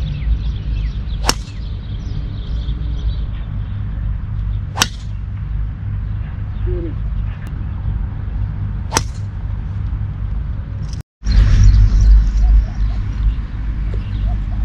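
Three golf tee shots, each a single sharp crack of a club head striking the ball, a few seconds apart, over a steady low outdoor rumble.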